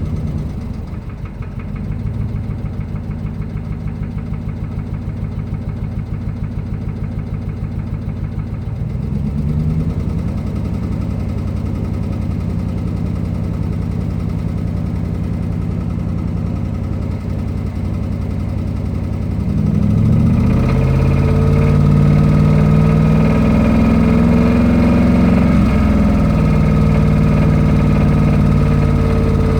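2005 Ram's 5.7-litre Hemi V8 running with a regular knock that the owner takes for rod knock. It idles at first, its speed rises about ten seconds in, then about twenty seconds in it is revved up and down a few times before holding at a higher speed.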